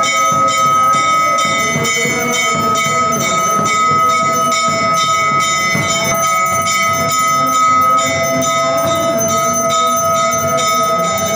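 A hanging brass temple bell rung again and again so that it rings without a break, over the steady beating of a large bowl-shaped nagara drum struck with two sticks.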